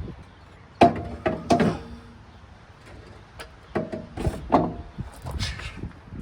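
Heavy metal counterweight clanking and knocking against a mini skidsteer's frame as it is worked into place: a quick cluster of three knocks about a second in and three more around four seconds, several with a brief metallic ring.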